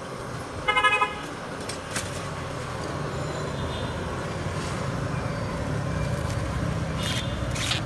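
Steady street traffic rumble with a short vehicle horn toot about a second in, and a few sharp clicks later on.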